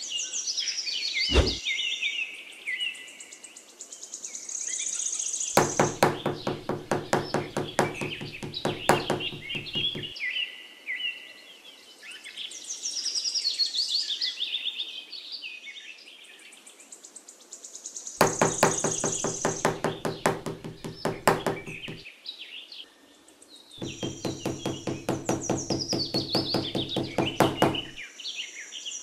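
A small hammer tapping wooden posts, in three runs of quick, even taps, about three or four a second, which are the loudest sounds. Birds chirp throughout.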